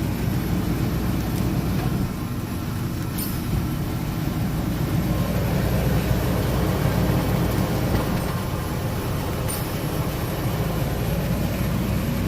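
Car drivetrain running steadily with the wheels turning and the brakes applied, giving a continuous low drone with two faint ticks. No clunk is heard from the rear suspension or brakes.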